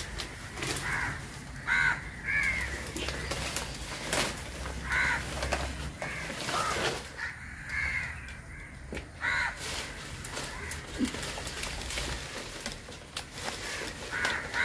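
Crows cawing outdoors, short calls repeating every second or few seconds, with a few faint clicks and knocks in between.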